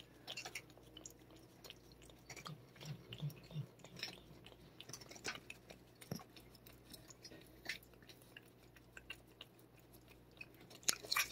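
A cat licking and chewing a paste treat squeezed from a tube: faint, irregular smacking clicks of its tongue and mouth.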